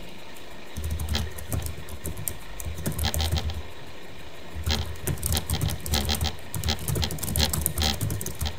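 Computer keyboard typing: quick runs of key clicks with dull thuds under them, starting about a second in and breaking off for about a second in the middle.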